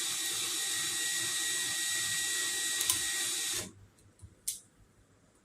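Drill running at a slow, steady speed, spinning a string-trimmer spool to wind trimmer line onto it; the motor stops suddenly about three and a half seconds in, followed by a couple of light clicks.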